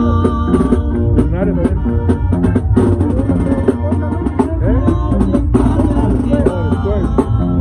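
A live band playing loud, with a drum kit and guitar.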